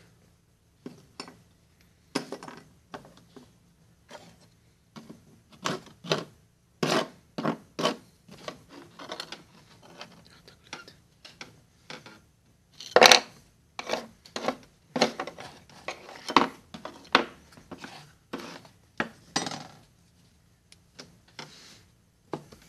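Small metal pieces and hand tools clinking and knocking on a wooden tabletop: a string of irregular clicks and taps, with one sharp knock about halfway through.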